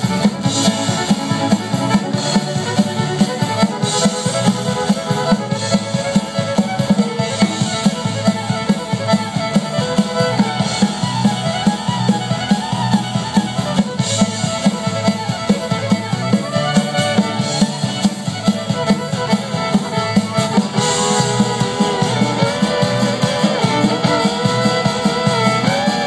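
A live band playing a fast dance tune over PA speakers, with a fiddle-like melody over guitar and drum kit and a steady driving beat.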